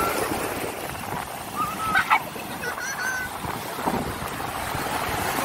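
Surf washing onto a sandy beach, with wind on the microphone. A couple of brief high-pitched children's cries come about two to three seconds in.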